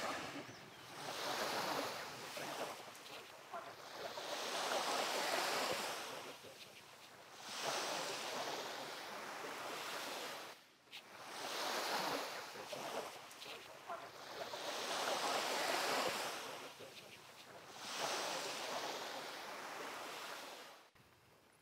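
Small waves breaking and washing up a sandy shore, the surf swelling and fading about every three to four seconds. It cuts off shortly before the end.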